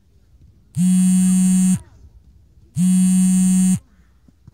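Sports hall timer buzzer sounding twice, each blast a harsh low buzz about a second long, a second apart.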